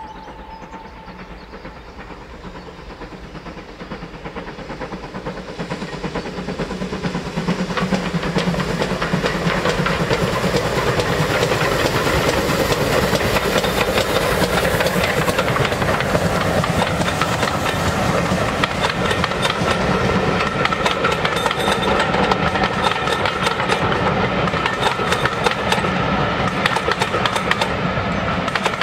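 A GWR steam tank locomotive approaching and passing while hauling a train of coaches, its running noise growing from faint to loud over the first ten seconds, with steam hiss. The coaches then roll past, their wheels clattering on the rails. A whistle from before fades out about a second in.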